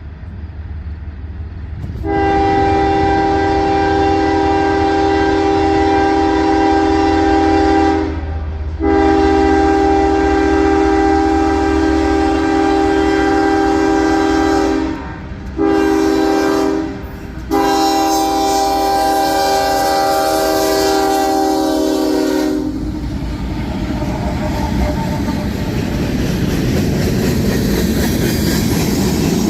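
Nathan K5HL five-chime air horn on a CSX ES44AH diesel locomotive sounding the grade-crossing signal: long, long, short, long. It is followed by the rumble and clickety-clack of the train passing on the rails.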